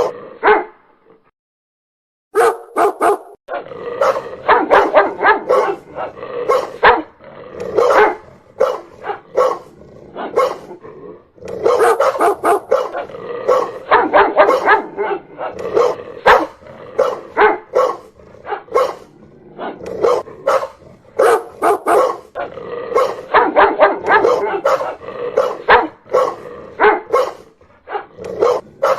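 Dog barking loudly in rapid, repeated barks, several a second. There is a short break about a second in before the barking resumes.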